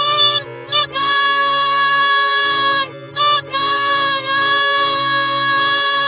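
Pingu's "noot noot" honk drawn out into long held, buzzy notes: a short honk after the start, a note held for about two seconds, a brief break, then another long held note.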